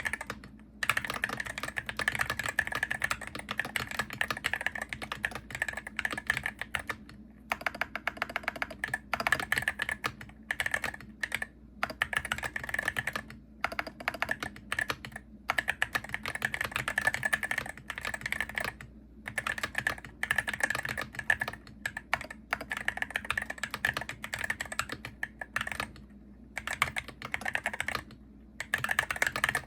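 Fast typing on a Hero68HE gaming keyboard: a dense patter of key clicks in runs of several seconds, broken by brief pauses.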